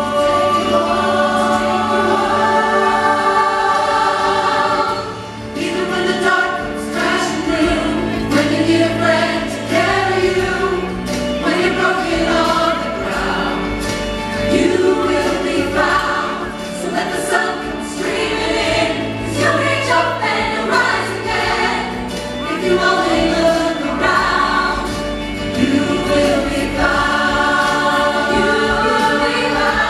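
Mixed ensemble of men and women singing a musical-theatre song together in harmony.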